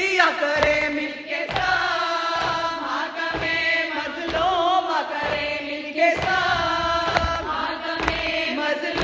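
Voices chanting an Urdu nauha, a Shia mourning lament, in long held lines over a recurring beat about once a second.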